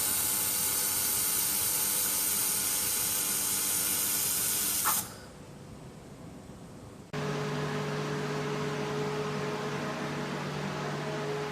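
Handheld 3-in-1 laser welding/cleaning machine running: a loud, steady hiss that stops suddenly with a click about five seconds in. About two seconds later a hiss starts again, now with a steady low hum under it.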